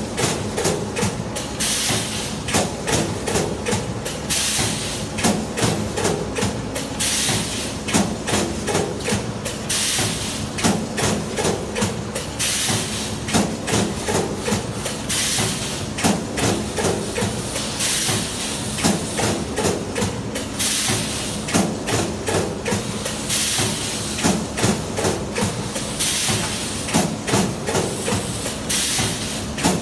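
Automatic multi-head wire mesh welding machine running: a busy clatter of clicks and clunks from its weld heads, with repeated bursts of hissing air from its pneumatic cylinders, over a steady hum.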